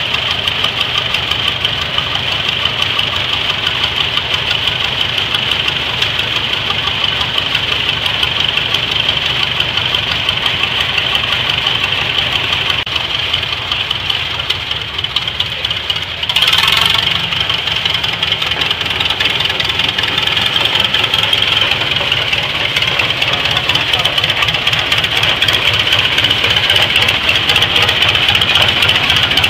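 Wallis Cub tractor's engine running steadily under way, with a regular beat. The sound jumps abruptly just past halfway through.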